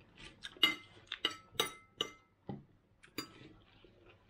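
Metal cutlery clinking against a small glass jar and a ceramic plate as dressing is spooned onto a salad: about six sharp, ringing clinks in the first three seconds, then quieter.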